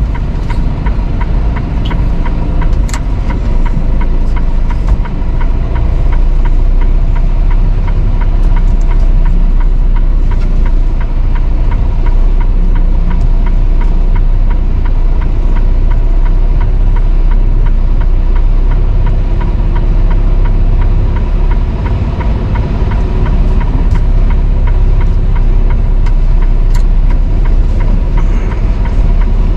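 Semi-truck's diesel engine and road noise heard from inside the cab while driving, a steady, loud low rumble with a few small clicks.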